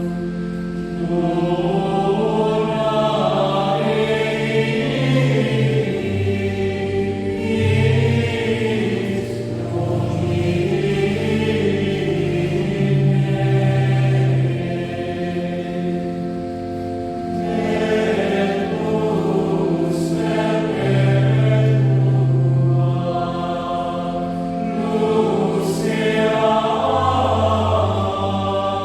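Choir singing a Requiem in slow, sustained chords, the voices swelling and softening from phrase to phrase over a low held bass line.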